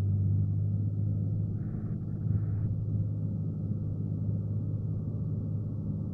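Cessna 182's piston engine and propeller droning steadily in the cabin, a low even hum with a short hiss about two seconds in.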